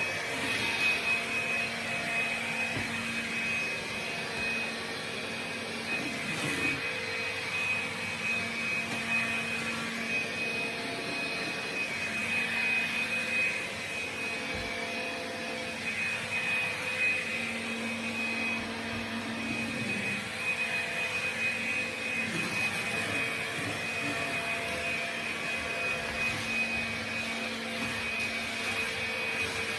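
Household vacuum cleaner running continuously, a steady whine with a high tone over its motor noise, rising and falling slightly in level as it is pushed around the floor.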